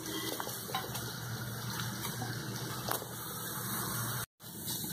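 Onion slices and green capsicum pieces sizzling in oil in an aluminium kadai: a steady hiss with a few faint ticks, cutting out briefly near the end.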